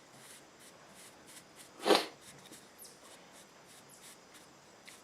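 Faint, repeated soft scratching strokes of baby powder being brushed onto a casting mold, with one short, loud breathy puff about two seconds in.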